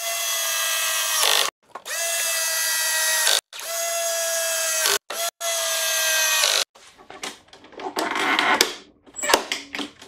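Greenworks 25302 40V cordless mower's electric motor switched on and off repeatedly: four runs of about a second and a half, each whining up in pitch as it spins up and cutting off sharply, with a brief blip between the last two. The motor now starts, the sign that the starter switch engages after the repair. Clicks and rattles of handling the mower follow near the end.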